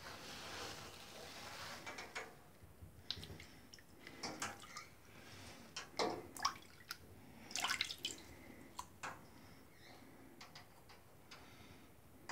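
Water splashing and sloshing in a small tub as a hand stirs it around floating foam lures, with irregular drips and plops. The loudest splashes come about six and eight seconds in.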